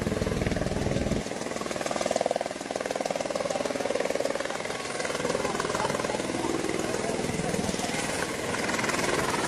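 Eurocopter EC130 light helicopter running close by, its rotor blades beating in a rapid, steady chop. A deep rumble underneath drops away about a second in.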